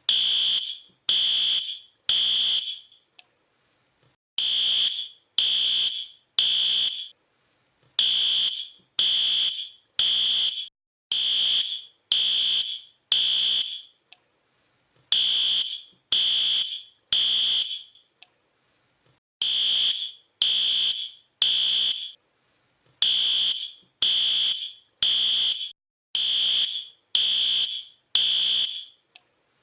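Fire alarm sounding a high-pitched electronic beep in repeated groups of three, about one beep a second with a pause between groups: the temporal-three evacuation pattern that signals a fire.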